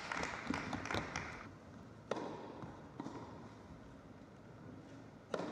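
Crowd noise with scattered clapping cuts off about a second and a half in. Then three sharp knocks echo in the large indoor hall as a tennis ball is bounced on the carpet court, the last and loudest near the end.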